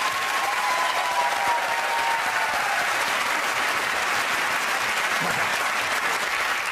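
Studio audience applauding steadily, with a single held voice faintly audible over it for the first two seconds.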